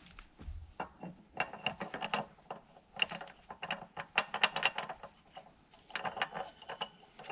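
Bursts of rapid metallic clicking and clinking from a hand tool worked at the bucket linkage pin of a Bobcat 325 mini excavator, in several runs of a second or so each.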